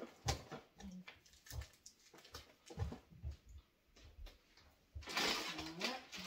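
Grocery packaging being handled: scattered light knocks and crinkles of boxes and plastic bags, then a louder, continuous plastic rustle about five seconds in, with a brief voice-like sound over it.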